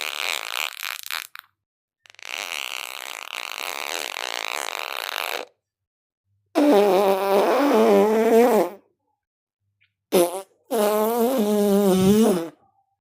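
A string of fart sounds, each cut off by dead silence. The first two are long, airy and hissing with no pitch. Three pitched, buzzing ones follow, the middle one short, their pitch wavering as they go.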